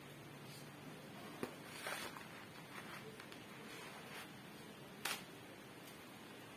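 Quiet handling of a handmade cosplay prop shield and sword: a few faint taps and clicks as the pieces are moved and fitted together, over a low steady room hum.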